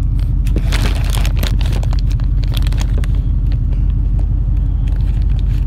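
Truck engine and road rumble while driving, steady and low, with light rattles and clicks, mostly in the first few seconds.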